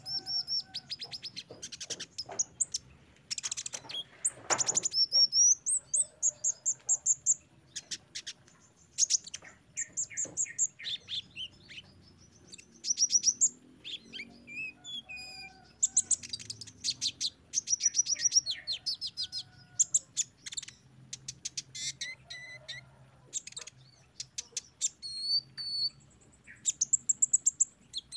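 Male sunbird (kolibri ninja) singing in repeated bursts of rapid, high chirps and short trills, with brief pauses between phrases.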